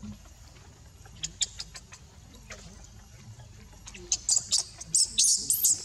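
Baby monkey giving high-pitched squealing cries: a few faint squeaks about a second in, then from about four seconds a rapid run of loud, short rising-and-falling squeals.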